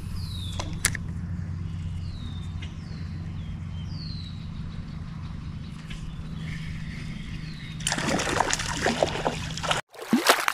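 Stream water running with a steady low rush, with repeated short high chirps falling in pitch over it. A louder, noisier stretch comes near the end, then the sound cuts off abruptly.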